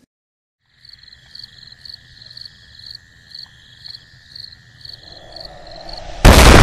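Night insects chirping, cricket-like: high, evenly repeated chirps over a steady high tone. About six seconds in, a sudden loud explosion boom takes over.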